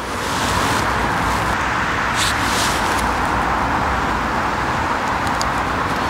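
Steady rushing background noise with a few faint light clicks about two seconds in and again near the end.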